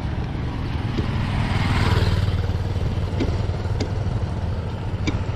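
A motorcycle passing by, its sound swelling to a peak about two seconds in and then fading, over a steady low rumble.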